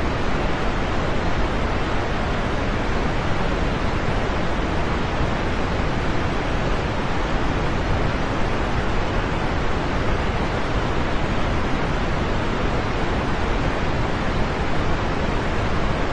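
Steady heavy rain: an even, unbroken hiss with no single drops, thunder or other events standing out.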